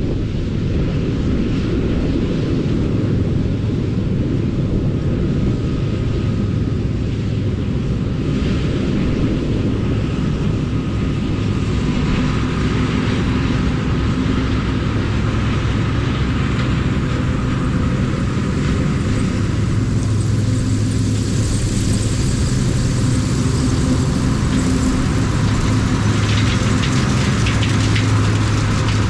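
Diesel engine of harvest machinery, combine or tractor, running steadily under load as a loud low drone with an even mechanical rumble; the hum grows a little stronger near the end.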